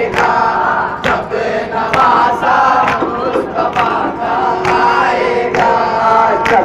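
A crowd of Muharram mourners chanting a nauha together, with sharp strikes about once a second in time with the chant, hands beating on chests (matam).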